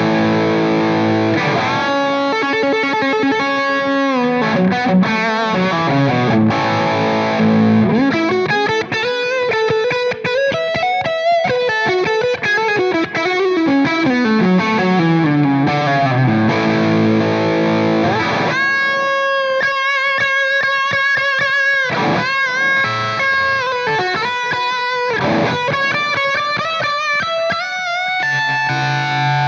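Electric guitar played through a Soldano SLO distortion pedal on its crunch channel with delay added: a distorted lead line with sliding, bending notes, a quick run in the middle and held notes towards the end.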